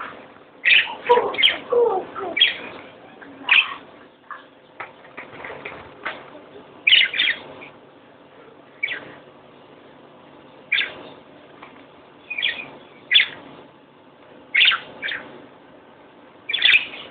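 Birds kept in a house chirping: a dozen or so short, sharp chirps at irregular intervals, usually a second or a few seconds apart, with quieter stretches between.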